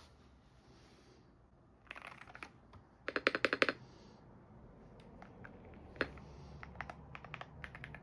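Keys of a Hummingbird 68 mechanical keyboard being pressed: a few faint clicks, then a quick run of about eight keystrokes about three seconds in, then scattered single keystrokes.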